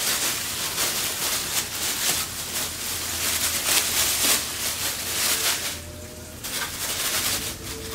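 Thin clear plastic bag crinkling and rustling as it is pulled and bunched by hand around a heavy object, with a brief lull about six seconds in.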